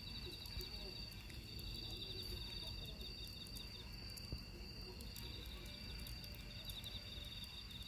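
Crickets and other night insects trilling: steady high-pitched tones with a rapid pulsing chirp over them. Under this are a low rumble and faint distant voices.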